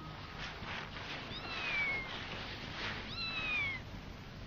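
Cats meowing: two drawn-out meows, each falling in pitch, one about a second in and another about three seconds in.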